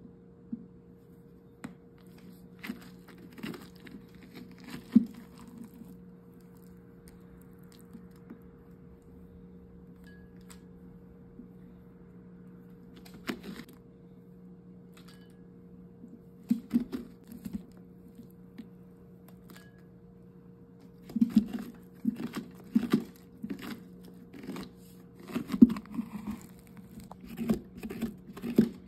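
A kitchen utensil scraping and scooping the wet, stringy pulp and seeds out of a hollowed pumpkin: irregular scrapes and knocks, sparse at first, then coming in quick runs over the last several seconds. A steady low hum runs underneath.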